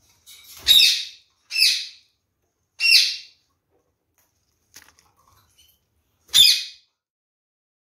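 Red-fronted kakariki (red-crowned parakeet) giving four short, loud calls: three in quick succession in the first three seconds, then one more after a pause, with a few faint clicks in between.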